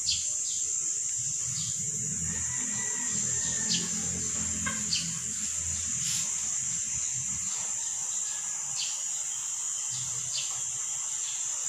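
Steady high-pitched insect drone with short falling chirps repeating every half second to a second, over a soft low rumble in the middle.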